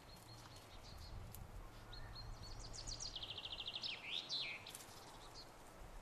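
A songbird singing one song from about two seconds in: a run of high notes, then a fast trill, ending in a short flourish, with a few faint chirps before it.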